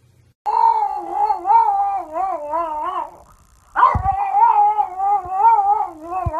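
French bulldog howling: two long, wavering howls with a short break about three seconds in.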